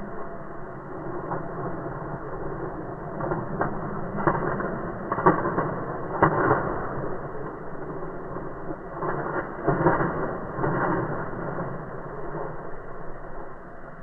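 Indian peacock shaking its raised, fanned train, the feathers making rustling, rattling bursts that swell and fade: a cluster about a third of the way in and another a little past two-thirds.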